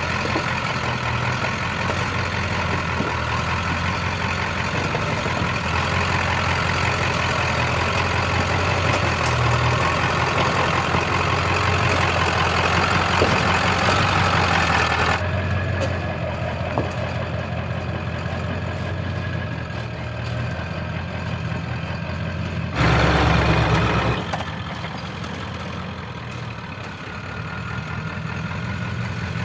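1996 Ford F-350's 7.3 Powerstroke turbo-diesel V8 running steadily at low speed as the truck crawls along an off-road trail. A short, louder burst comes about 23 seconds in.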